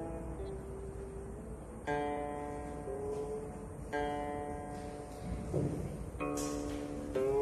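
Slow background music on a plucked string instrument: single notes struck about every two seconds, each ringing on and bending in pitch as it fades.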